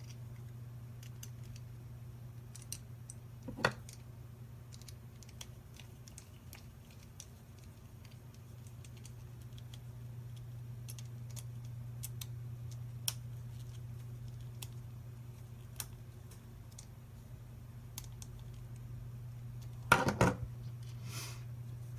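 Small scattered clicks and ticks of a hand screwdriver driving screws into 3D printer extruder hub parts, over a steady low hum. Near the end a short, louder clatter as the metal screwdriver is set down on the wooden table.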